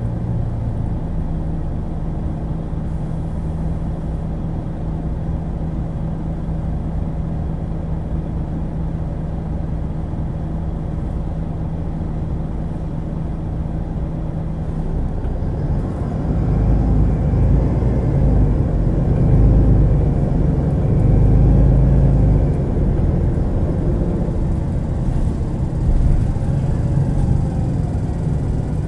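MAN Lion's City G articulated bus with a ZF Ecolife automatic gearbox, its diesel engine idling steadily for about fifteen seconds. The bus then pulls away: the engine runs louder under load, with a whine that rises and falls as it accelerates, and eases off near the end.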